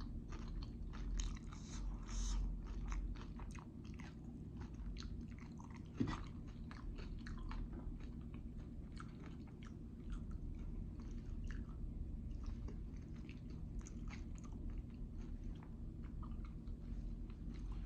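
Close-miked chewing of jalapeño poppers: wet mouth clicks and soft crunches in an irregular run, a little busier in the first few seconds.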